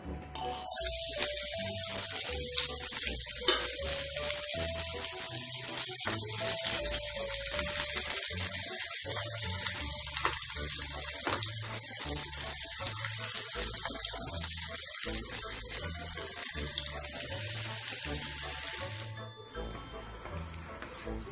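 Water running from a kitchen tap into a sink, a steady hiss that starts about a second in and stops shortly before the end, over background music with a steady beat.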